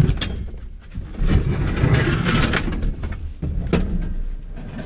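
A pickup's bench seat being wrestled and dragged out of a stripped cab. It scrapes and rubs against the floor and door frame for a couple of seconds, with a few knocks as it bumps the cab.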